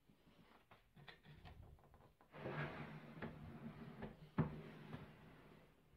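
Large plywood drawer pulled open on its runners: a few light handling clicks, then a rumbling slide with a sharp knock just over four seconds in.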